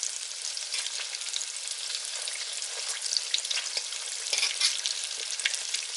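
Coated halloumi fries frying in hot oil: a steady sizzle with scattered crackles and a few sharper pops.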